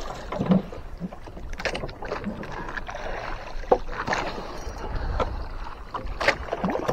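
Sea water lapping and slapping against the hull of a small wooden fishing boat, over a steady low rumble, with scattered sharp knocks.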